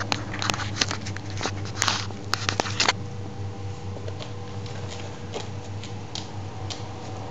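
Cat purring steadily as a continuous low hum, with a quick run of soft clicks and taps in the first three seconds.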